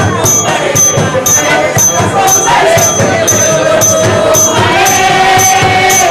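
A church congregation singing together, with a jingling percussion beat struck about twice a second under the voices.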